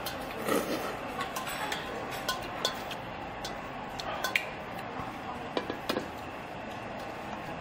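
Stainless steel bowl and metal chopsticks clinking and knocking on the table and against other metal bowls: a scatter of short sharp clicks, with a close pair about six seconds in as the emptied bowl is set down.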